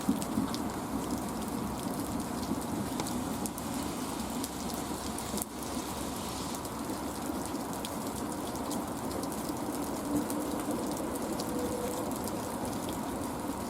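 Heavy rain falling steadily, with many small drop impacts, over a steady low hum.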